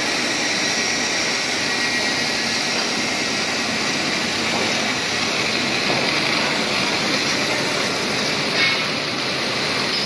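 Water jet vacuum ejector in operation: a steady rushing hiss of pumped water driven through the ejector and discharging into an open tank. One short click sounds near the end.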